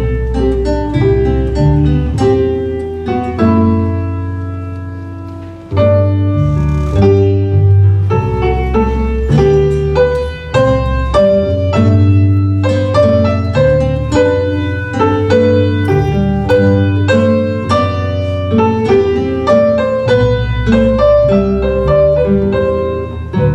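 Live instrumental music in baroque style: plucked or keyboard notes in quick runs and chords over a moving bass line. The sound dies away on a held chord about five seconds in, then the playing resumes.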